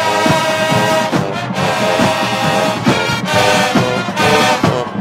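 Marching band playing: the horns come in right at the start with loud, held brass chords, over repeated drum hits.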